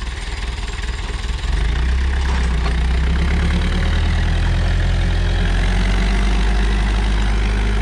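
Diesel engine of a 1972 International Harvester B276 tractor running at low revs under load while it pulls a disc harrow through the soil. The engine gets louder about a second and a half in, then holds steady.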